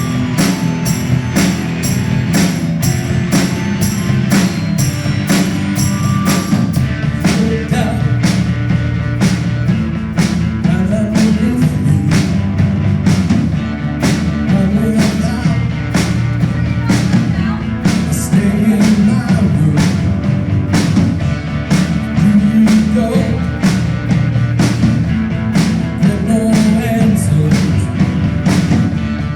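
Live rock band playing a song with drums keeping a steady beat, guitar and vocals.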